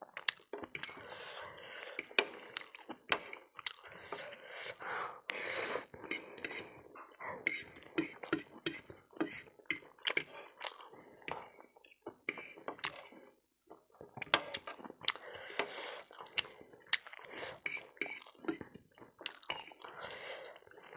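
Fork and spoon clinking and scraping on a ceramic plate while noodles are gathered, with close-up chewing in between. Many short sharp clicks, with a brief lull a little past halfway.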